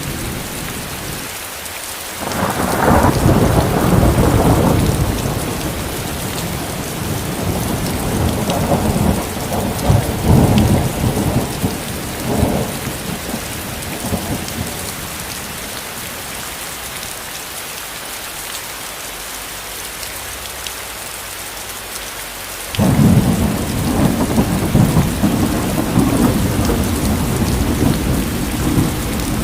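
Steady heavy rain hissing, with rolls of thunder rumbling over it: one from about two seconds in, more around eight to thirteen seconds, and a sudden loud crack and rumble about twenty-three seconds in that rolls on to the end.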